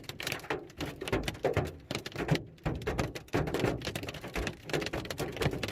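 Large hailstones pelting a vehicle's roof and windshield, heard from inside as a dense, irregular clatter of hard taps.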